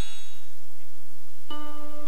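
The fading tail of a twinkling chime flourish, then about one and a half seconds in a held musical chord begins: background music on a children's read-along cassette.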